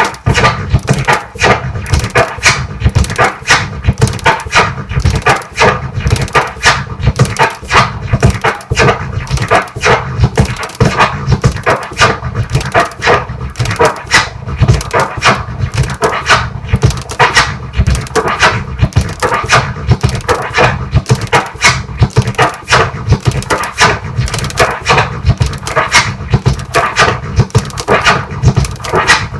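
Turntable scratching of a kick-and-snare drum sample, repeated fast and rhythmically: a 3-click orbit, with three crossfader clicks cutting the sound on the forward stroke and three tear-pauses on the backward stroke, eight sounds per cycle.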